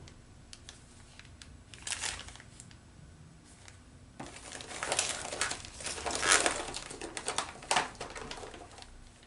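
Small items and packaging being handled on a workbench: crinkling and rustling with light clicks, sparse at first and busy from about four seconds in.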